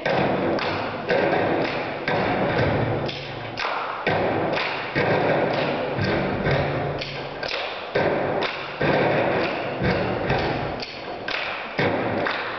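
Rhythmic stomp-and-clap body percussion: heavy thumps of hands and fists on a tabletop and feet stomping, about once a second, with quicker claps and slaps in between.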